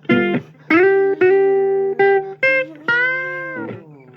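Blues guitar playing a short fill between sung lines: a run of plucked notes, some bending and sliding in pitch, with one long bent note about three seconds in. A steady low hum runs underneath.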